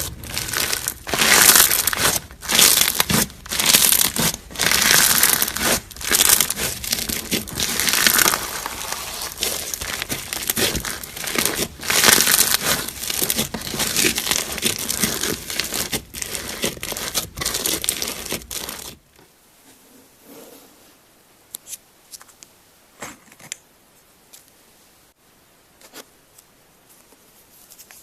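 Slime being squeezed and pressed by hand, giving repeated loud, noisy bursts of crackling and squishing. About two-thirds of the way through it cuts to a much quieter clip with only a few faint clicks.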